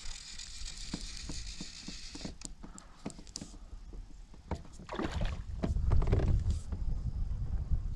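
Water splashing as a hooked bass fights on fly line at the surface beside a kayak, with a run of light clicks; the splashing is loudest about five to six and a half seconds in.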